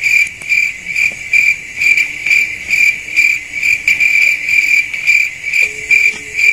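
Cricket chirping in a steady, even rhythm of about two chirps a second.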